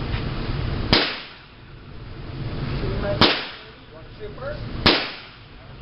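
Three gunshots, the first about a second in and the others roughly a second and a half to two seconds apart, each a single sharp crack with a short echo.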